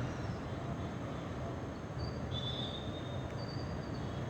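Steady low outdoor background rumble, with faint, thin, high whistle-like notes from about two seconds in, two of them about a second long.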